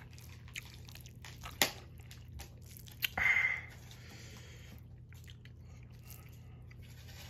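Close-up eating of instant noodles: quiet chewing with a few sharp clicks, and one short, louder sound about three seconds in.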